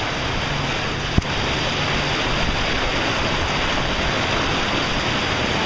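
Steady rushing and splashing of floodwater close to the microphone, held out of a car window over the flooded street. There is a single sharp knock about a second in.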